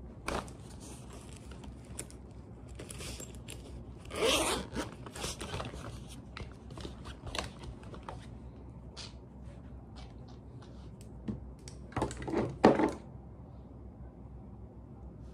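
Makeup items being handled: short scrapes, rustles and small clicks, with louder scraping bursts about four seconds in and again about twelve seconds in.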